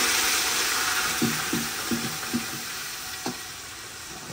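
Onion paste sizzling loudly in hot oil in a large cooking pot, the sizzle gradually dying down. A few short stirring strokes come in the middle.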